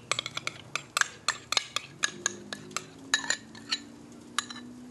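Metal spoon scraping and tapping mayonnaise out of a cup into a bowl: a quick run of sharp clicks and clinks that thins out over the second half.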